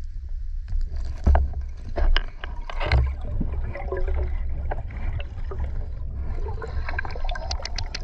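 River water gurgling and sloshing around a swimmer's camera in the current, over a steady low rumble, with scattered sharp clicks and bubbling.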